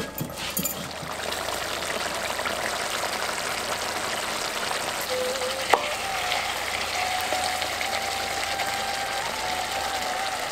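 A stone roller knocks a few times on a grinding stone at the start. Then comes a steady sizzling hiss of mutton curry cooking down in a clay pot, with a single sharp click midway and a faint steady high tone over the second half.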